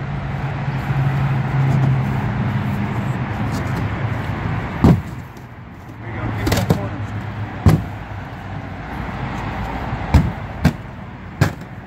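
Cardboard shipping crate being opened by hand: about half a dozen sharp knocks and thuds as the panels are pulled and bumped, the first loud one about five seconds in. Under the first five seconds runs a steady low hum.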